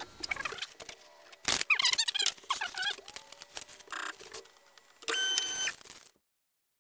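Shapeoko Pro CNC router being jogged from a keyboard: a sharp click, then short whines that rise and fall in pitch as the stepper motors move the gantry, and a brief steady beep about five seconds in. The sound cuts out near the end.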